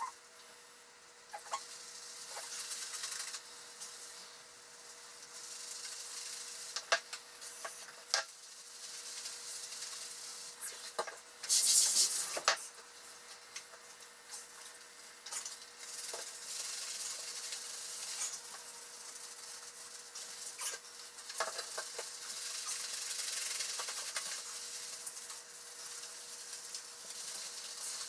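Hands lathering shampoo into a wet Shetland sheepdog's coat: wet, soapy rubbing of fur that comes and goes in waves, with a brief louder hiss about twelve seconds in.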